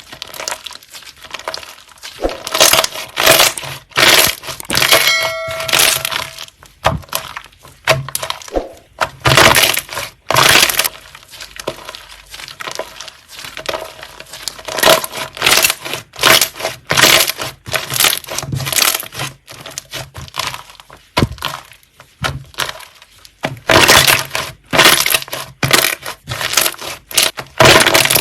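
Slime being squeezed and pressed by hand, crackling and crunching in quick, irregular bursts.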